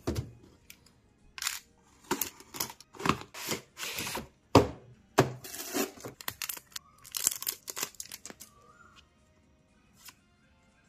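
A toy's retail packaging being opened by hand: a quick series of tearing, crinkling and scraping noises from cardboard and plastic for about eight seconds, then only a few faint handling sounds.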